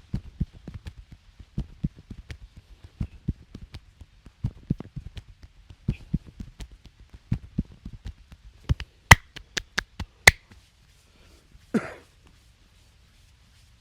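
Massage hands tapping and patting in quick, irregular strokes for most of the stretch. Then a handful of sharp, louder snaps a little after nine seconds in, and one last brief, duller sound near the end.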